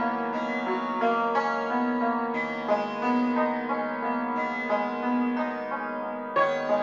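Background music: a melody of plucked string notes over a steady low drone.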